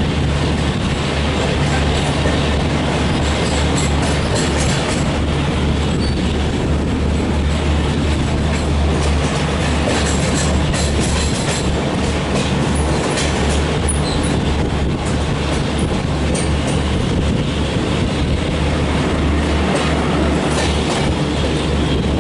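Rajdhani Express passenger train running at speed: a steady rumble of coaches on the track, with clusters of wheel clicks over rail joints.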